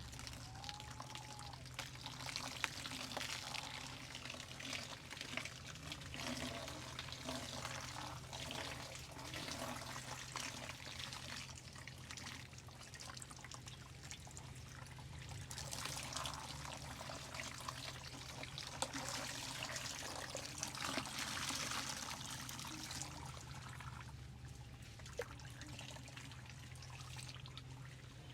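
Water pouring and trickling over a person's hair during a hair wash, coming and going in waves, over a steady low hum.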